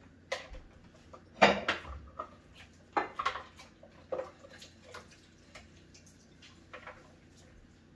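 Dishes being handled in a sink of soapy water by a toddler: irregular knocks and clinks of bowls and plates, about ten over the span, none of them steady.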